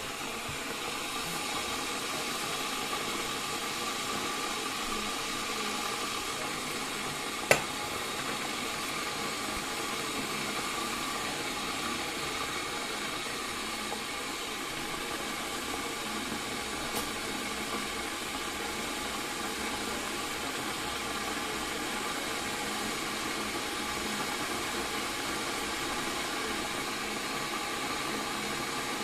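Kettle heating water, a steady rushing hiss, with one sharp click about seven seconds in.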